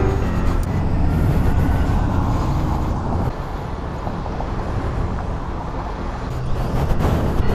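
City street traffic noise with a steady low rumble, dropping slightly about three seconds in.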